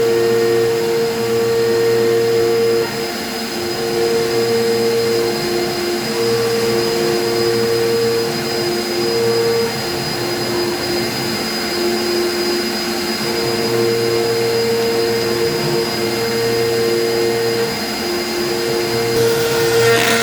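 CNC router spindle at 15,000 RPM driving a two-flute upcut bit through polycarbonate sheet: a steady machine noise with a high whine, and a lower tone that drops out and comes back every few seconds. About nineteen seconds in the sound turns rougher and brighter.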